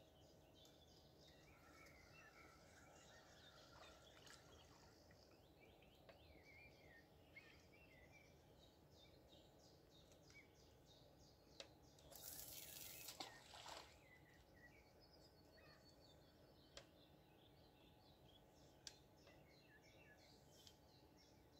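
Faint outdoor ambience with small birds chirping and calling throughout. About halfway through comes a brief hiss lasting roughly two seconds, and there are a few sharp clicks.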